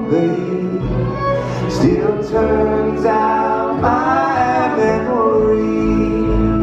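Live bluegrass band playing, with the fiddle to the fore over banjo, acoustic guitar and upright bass.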